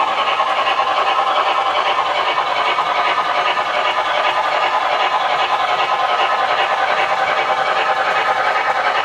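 MTH HO-scale GS4 4-8-4 steam locomotive's Proto-Sound 3 sound system playing steady, rapid steam chuffing, mixed with the model's wheels running on the rails. The sound keeps going without stuttering or dropping out, a sign that the 5-amp booster gives the locomotive enough power.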